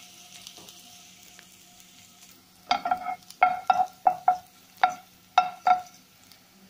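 Minced garlic sizzling in hot oil in a nonstick frying pan, the hiss fading within about two seconds. Then a slotted spatula stirs it, knocking against the pan about ten times in quick succession, each knock with a short ring.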